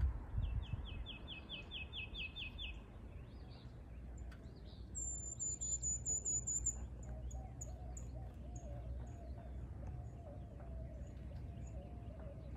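Birds singing: a fast trill of about four repeated notes a second at the start, then a higher, thinner trill about five seconds in, followed by scattered high chirps and a lower wavering song. A low rumble sits underneath.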